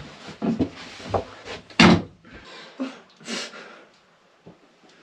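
Wooden knocks and clatter of a louvred wardrobe door being handled, with one sharp, loud knock about two seconds in and a scrape a little after three seconds.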